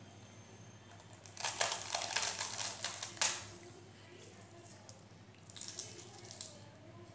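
Flaky Dhakai paratha being torn and crumbled by hand over a steel plate: crisp crackling for about two seconds, then softer crackling a couple of seconds later.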